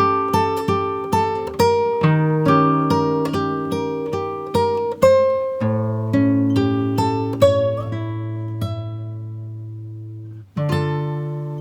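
Background music: fingerpicked acoustic guitar, a run of plucked notes that settles on a held chord fading out about halfway through, then picking up again near the end.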